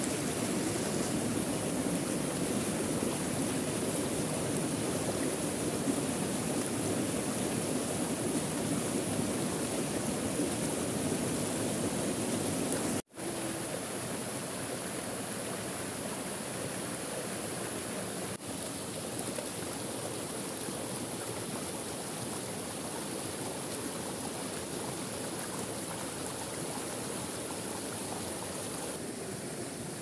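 Rushing water of a small forest waterfall and stream, a steady noisy wash. About thirteen seconds in it breaks off for an instant and comes back quieter and thinner.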